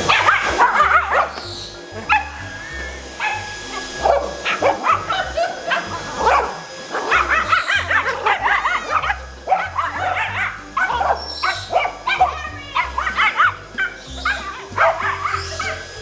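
A dog barking and yipping excitedly, with background music and a steady bass beat.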